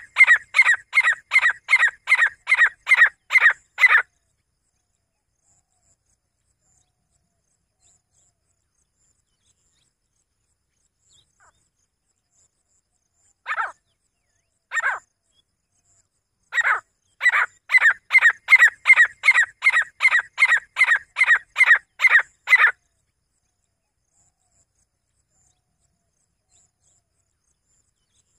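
Grey francolin calling: a loud run of sharp, repeated notes at about three a second, which stops about four seconds in. Two lone notes follow near the middle, then another run of about six seconds.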